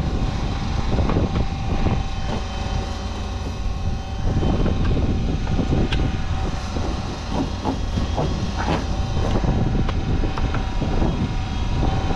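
A machine running steadily, with a faint constant whine over a low rumble and scattered clanks and knocks throughout.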